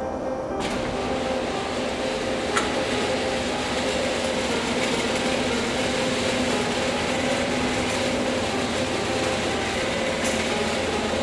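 Motorised garage door opener raising a sectional overhead door: a steady mechanical rumble with a constant hum and an occasional click.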